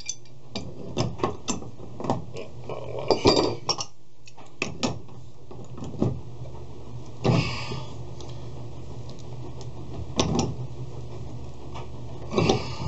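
Adjustable wrenches clinking against a threaded water-pipe fitting as it is tightened hard: a run of sharp metal clicks and clinks over the first few seconds, then a few separate knocks and scrapes.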